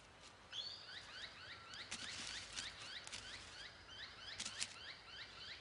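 A bird chirping in a quick repeated series of short, identical notes, about three a second, starting about half a second in, with scattered sharp clicks among them.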